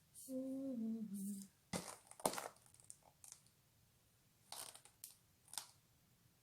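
A brief murmured voice near the start, then two sharp clicks and a few scattered light rustles and taps as a cosmetics package is handled and opened.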